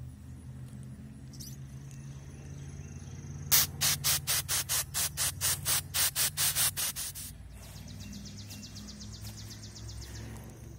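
Mace mini keychain pepper spray firing: a rapid string of short, sharp hisses at about four a second, starting a few seconds in and lasting three to four seconds.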